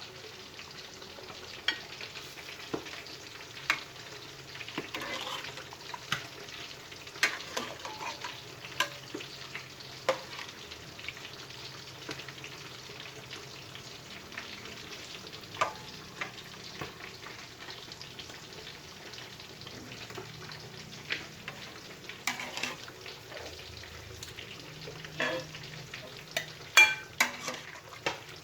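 Food frying in a pan with a steady sizzle, while a utensil stirs it and clicks and scrapes against the pan again and again; the sharpest clack comes near the end.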